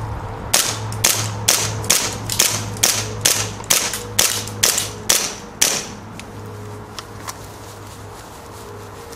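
Tokyo Marui Night Warrior gas-blowback airsoft pistol fired in quick succession, about fifteen sharp shots, two or three a second, until the magazine runs empty and the slide locks back. Two faint clicks follow about a second later.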